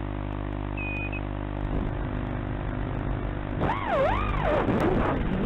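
Racing quadcopter's brushless motors heard over the lo-fi video-link audio: a steady idle hum with a short beep about a second in, then the pitch sweeps up and down as the quad is throttled up and lifts off the grass.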